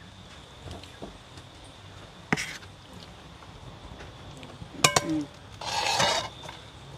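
A few sharp clinks and knocks of cookware being handled: one about two seconds in, a quick pair with a brief ring about five seconds in, then a short scrape, over a faint steady high whine.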